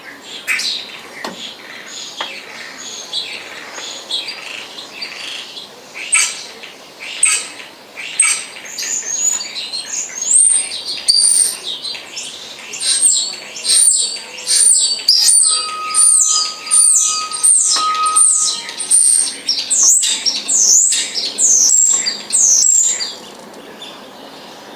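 Starling singing: a long run of loud whistles and chirps in quick succession, high and sharply gliding, stopping a couple of seconds before the end.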